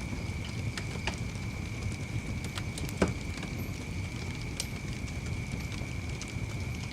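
Wood fire burning in a fireplace: a low rumble of flames with scattered crackles and pops, and one louder pop about three seconds in.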